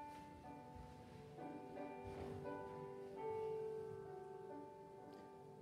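Quiet, slow instrumental music with long held notes.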